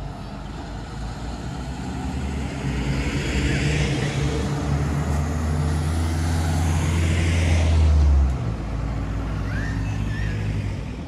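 Motor vehicle engine running with a steady low hum, growing louder over several seconds, then dropping away sharply about eight seconds in.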